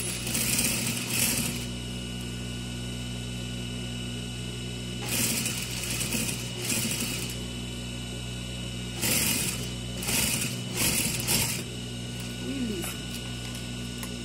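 Industrial sewing machine stitching in three short runs over the steady hum of its motor.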